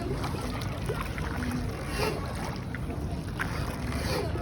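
Riding aboard a boat on the river: a steady low rumble, with scattered small knocks and faint distant voices.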